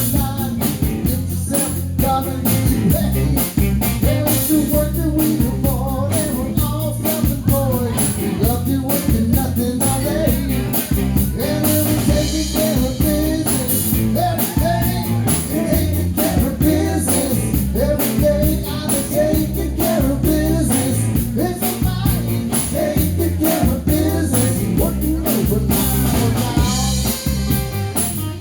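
Live rock-and-roll band playing: drum kit and electric guitar over a steady beat, with a melodic lead line wandering above.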